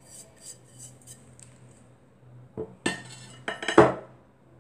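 Kitchen dishes and utensils clinking: a few faint light clicks at first, then a quick clatter of several loud knocks about three seconds in.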